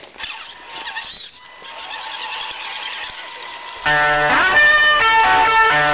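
A faint electric-motor whine from RC scale crawlers driving through a puddle grows slowly louder. About four seconds in, electric-guitar rock music starts abruptly and becomes by far the loudest sound.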